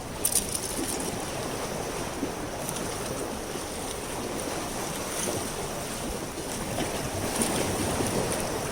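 Harbour water sloshing and lapping steadily, with a few faint sharp clicks.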